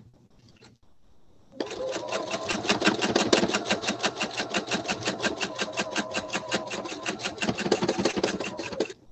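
Pfaff sewing machine stitching at a fast, steady pace while free-motion quilting through a layered quilt. It starts about a second and a half in and stops abruptly just before the end.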